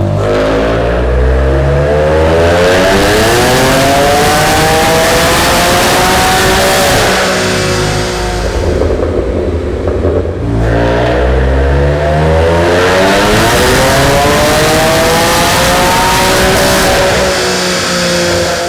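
BMW S55 twin-turbo straight-six in an F80 M3 on Mosselman hybrid turbos, loud under full-throttle dyno pulls. The revs climb steadily twice, each rise lasting about eight seconds, with a break of about two seconds between them.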